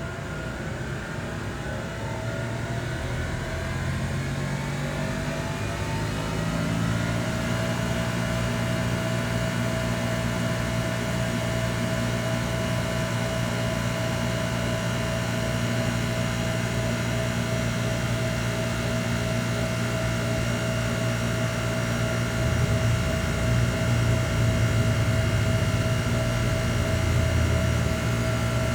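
Transit bus running, its drivetrain whine rising in pitch as it speeds up over the first several seconds, then holding a steady whine over a low hum. These are the very weird grinding noises this bus makes, a sign of something abnormal in the drivetrain.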